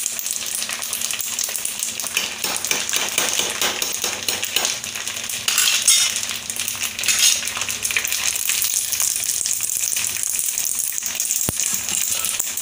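Flour-coated macaroni deep-frying in hot oil in a kadai: a steady crackling sizzle, with two louder bursts of crackle about halfway through. The pieces are still pale, not yet fried to golden brown.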